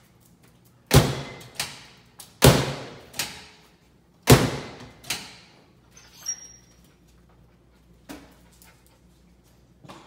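Microwave door being slammed shut again and again: three loud bangs about a second and a half apart, each with a ringing tail and a lighter knock after it, then softer knocks.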